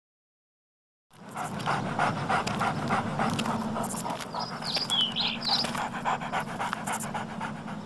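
Small shaggy dog panting in a fast, regular rhythm, starting about a second in.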